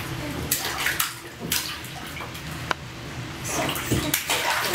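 Baby splashing bathwater with her hands in a plastic infant tub: a few separate splashes, then a quicker run of splashes near the end.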